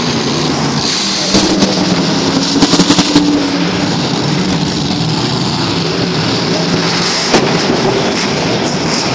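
Monster truck's supercharged V8 running loud and revving over the arena floor, with sharp cracks about a second and a half in, a quick cluster around three seconds, and one more near the end.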